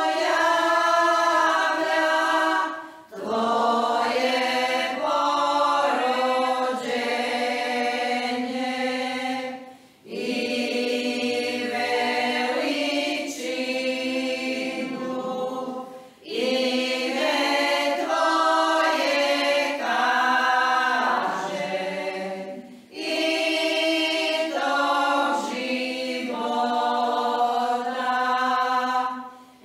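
Women's choir singing a Croatian church folk hymn unaccompanied, in sung phrases of about six or seven seconds with short breaks for breath between them.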